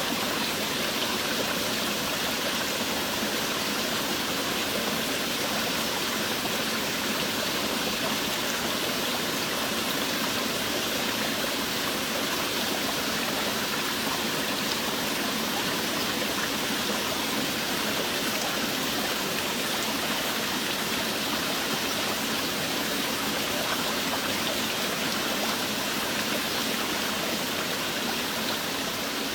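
Steady heavy rain: a dense, even hiss of falling water that holds constant throughout.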